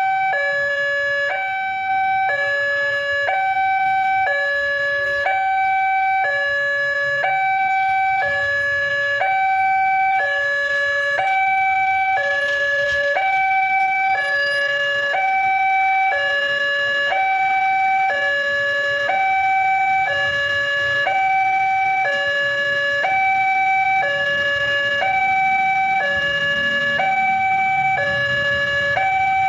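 Railway level-crossing alarm sounding from its loudspeaker horn: a steady electronic two-tone hi-lo warning, switching between two pitches about every 0.6 seconds. It is the crossing's warning that the barrier is down for an approaching train.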